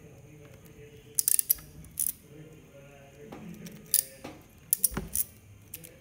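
Hand crimping tool crimping an RJ45 plug onto a LAN cable: a series of sharp metallic clicks as the tool's handles are squeezed and worked, a quick cluster about a second in, then single clicks around two and four seconds and a few more near the end.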